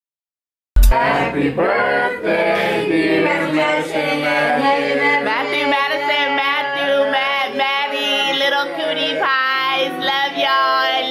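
A small group of women's and children's voices singing together, starting abruptly about a second in with a click after silence.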